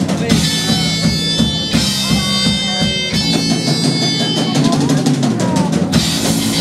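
Live rock band playing with drums to the fore: kick, snare and rolls over sustained guitar chords.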